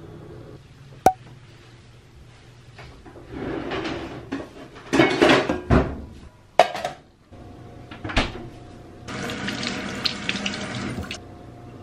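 Kitchen clatter of pans and dishes being handled, with several sharp knocks, then a tap running into a stainless steel sink for about two seconds near the end as a pepper is rinsed under it.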